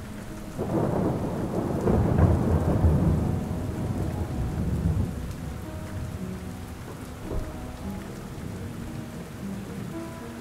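Steady rain with a long roll of thunder that swells about half a second in, peaks around two seconds and dies away by about five seconds, with soft background music notes held under it.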